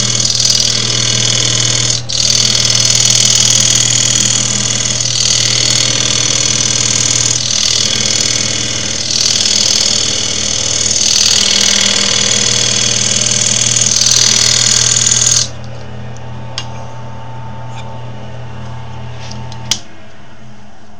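Wood lathe running with a tool held against the spinning wood, making a loud rushing hiss that swells and eases as the tool moves, over a steady motor hum. The hiss stops abruptly about fifteen seconds in, and the motor hum carries on until it cuts off near the end.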